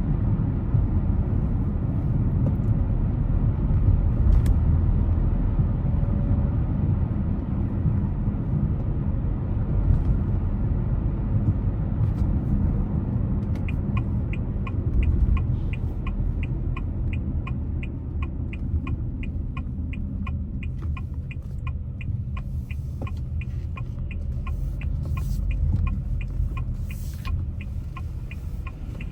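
Steady low road and engine rumble of a car on the move, heard from inside. About halfway through a turn-signal indicator starts ticking at about two or three clicks a second, while the rumble eases.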